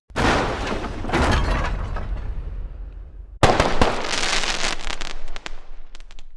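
Two explosion sound effects, one right after the other. Each starts suddenly and tails off with crackling, and the second, about three and a half seconds in, carries a string of sharp cracks and pops.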